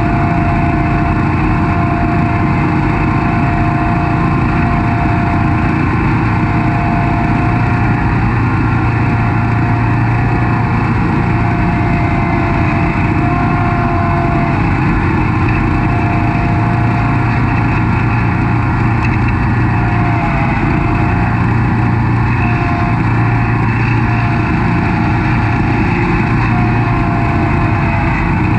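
Snapper Pro SS100 36-inch stand-on commercial mower running steadily at mowing speed, its engine hum joined by a steady high whine.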